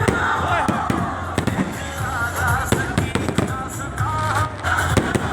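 Aerial fireworks going off in quick succession, a steady run of sharp bangs and crackles, over loud music with a singing voice.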